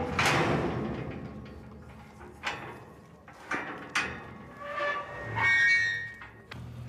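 Steel corral gates and pipe panels clanging. One loud metal clang at the start rings out and dies away over about two seconds. Several shorter clanks follow, then a drawn-out metal squeal near the end.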